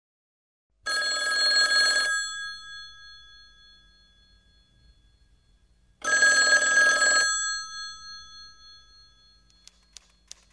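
Vintage rotary desk telephone's bell ringing twice, each ring a bit over a second long, its tone dying away after each ring. A few faint clicks near the end.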